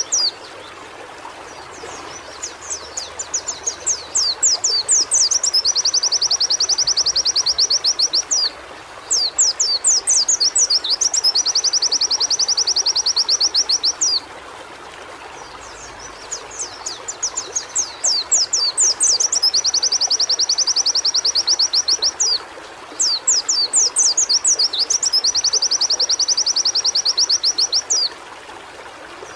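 White-eye (pleci) singing in repeated phrases. Each phrase is a run of quick sweeping notes that runs into a long, fast, high trill, with short pauses between phrases. A steady background hiss sits underneath.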